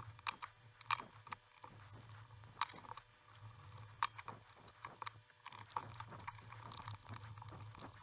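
Phillips screwdriver turning small machine screws into the metal connector plate of a Bird wattmeter, making faint, irregular clicks and scrapes of metal on metal.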